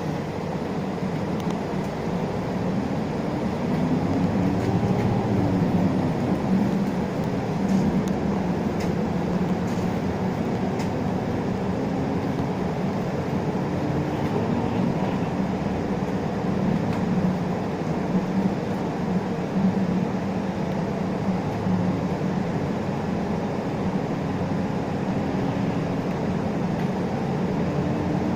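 Interior running sound of an Isuzu Erga LV290 city bus: the four-cylinder diesel engine's note rises and falls with speed over steady road and tyre noise, heard from inside the passenger cabin.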